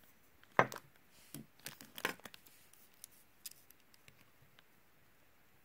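Clear plastic bag crinkling and rustling while machined aluminium parts and digital calipers are handled on it, with a few sharp clicks; the handling noises stop after about three and a half seconds.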